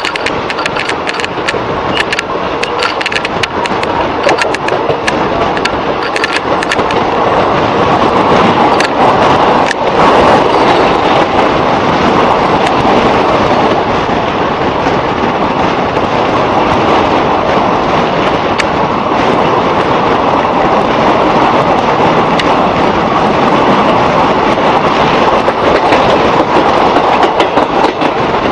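A moving passenger train's coaches rolling on curving track, heard from aboard: a steady loud rush of wheel and running noise, with rapid clicking from the wheels over rail joints in the first several seconds and again near the end.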